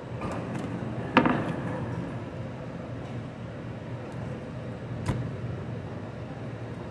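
A whole boneless beef strip loin is handled and set down on a plastic cutting board, giving two sharp knocks: a louder one about a second in and a smaller one about five seconds in. A steady low hum runs underneath.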